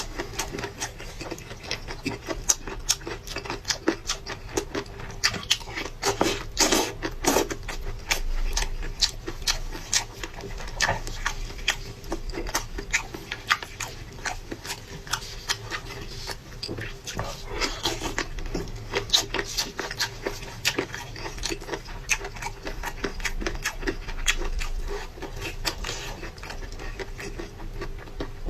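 Close-up eating sounds of a person chewing fish: irregular wet chewing and mouth clicks, many short sharp sounds in quick succession.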